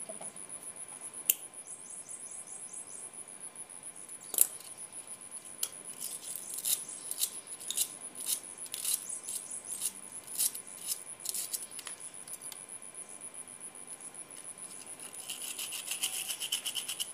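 Small sharp clicks and scrapes of pliers working on electrical wire and its insulation, coming irregularly, with a rasping rub in the last couple of seconds. A steady high-pitched whine sits underneath.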